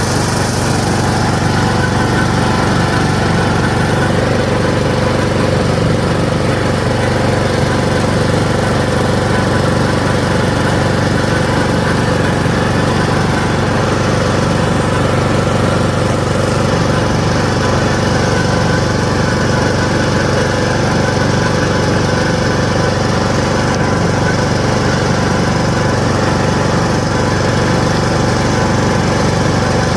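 Riding lawn mower engine running steadily while it drives along, an even drone that holds the same pitch and level throughout.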